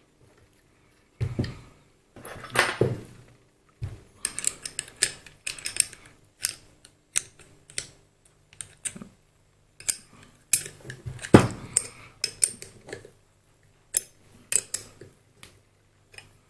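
Steel parts and hand tools clinking, tapping and scraping as a mini lathe's topslide is reassembled: irregular sharp metallic clicks and knocks, with a brief rattling scrape near the start.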